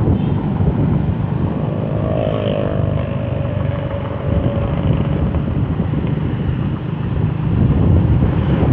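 Motorcycle running along the road at speed, its engine note mixed with a steady rush of wind noise. A pitched engine note stands out for a second or so about two seconds in.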